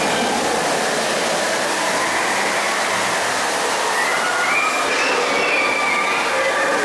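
Steady rushing ambience inside the dark ride's cavern, even and unbroken, with faint thin tones drifting through it about five seconds in.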